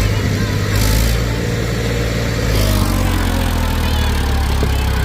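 A heavy vehicle's engine running steadily close by, a loud low drone that holds an even pace.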